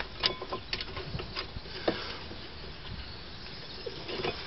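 Several short, light clicks and knocks of metal brake parts being handled in the first two seconds, then a low steady background.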